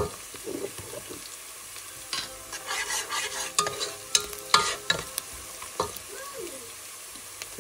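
Chopped red onions frying in oil in a pot, sizzling, while a slotted spatula stirs them, with irregular scrapes and knocks of the spatula against the pot.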